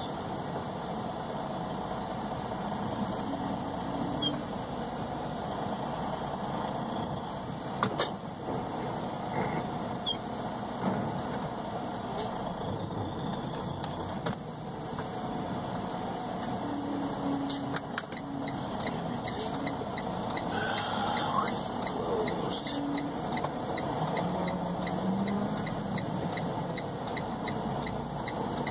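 Semi truck's engine running, heard from inside the cab as the truck rolls slowly across a parking lot, with scattered clicks and rattles. A light, even ticking comes in about halfway through.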